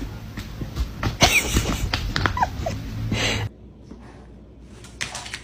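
Two dogs play-fighting at close range: scuffling and heavy breathing with a few short, high squeaks. About three and a half seconds in the sound cuts off to something much quieter.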